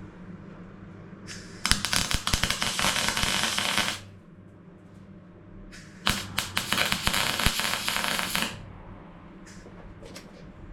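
Welder laying tack welds on the steel sill panel of a Range Rover Classic: two crackling bursts of about two seconds each, the second starting about six seconds in.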